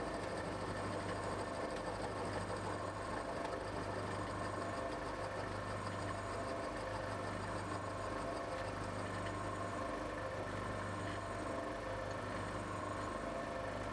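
Milling machine running steadily as a freshly sharpened endmill cuts a step into a metal block: a steady motor hum with the cutting noise of the endmill in the metal.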